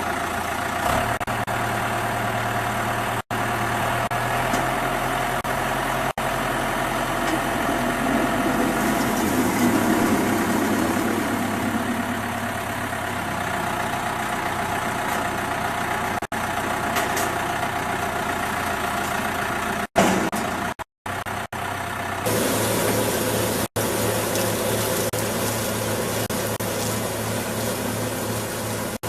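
Potato harvester running steadily: engine with the clatter of its machinery. The sound breaks off briefly several times, and its character shifts about two-thirds of the way through.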